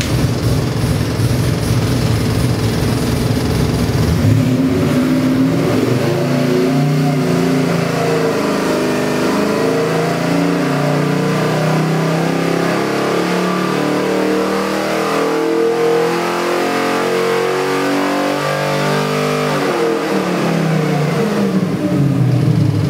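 A 427 cubic-inch 351 Windsor-based stroker V8 running a pull on an engine dynamometer. It holds a steady speed for a few seconds, then the revs climb gradually under load for about fifteen seconds before dropping back quickly near the end.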